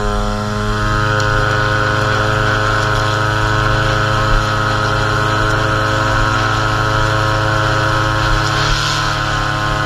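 Gas string trimmer engine running steadily at high speed while the trimmer line edges grass along a concrete sidewalk, with a few brief ticks.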